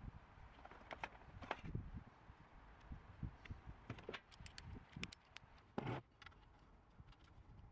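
Torx bit socket being handled at a metal bit set: scattered small metallic clicks and clinks, with one louder knock about six seconds in.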